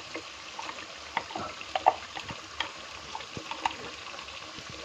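Mutton sizzling in ghee in a pot, a steady frying hiss, with scattered light clicks and scrapes of a spoon against a steel bowl as a ground coconut and dry-fruit paste is scraped into it.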